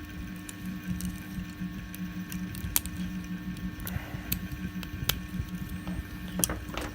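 Sharp, irregular clicks and small snaps of 3D-printed plastic support being cut and broken off a print with pliers and cutters, over a steady low hum.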